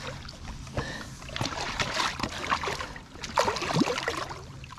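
Irregular splashing and slapping of water beside a fishing boat as a big hooked striped bass is fought at the surface.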